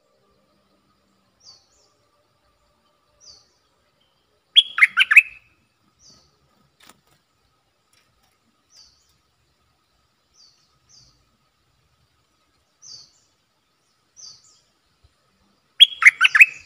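A caged stripe-throated bulbul sings two loud, quick phrases of several notes, one about five seconds in and one near the end. Faint short high chirps come every second or two between them.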